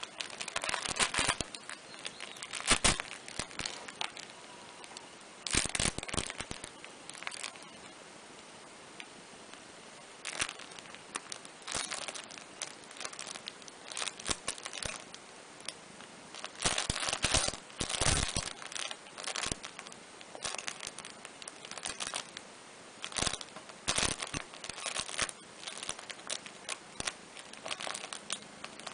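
Irregular bouts of rustling and crinkling from a fabric baby play mat as a kitten shifts and paws on it, in clusters of short crackly clicks with quiet gaps between.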